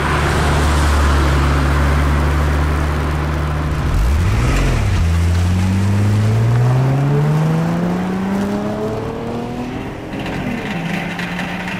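Sound effect of a motor vehicle engine: it runs steadily, dips and swells briefly about four seconds in, then climbs in pitch as it accelerates, and settles to a steady note near the end.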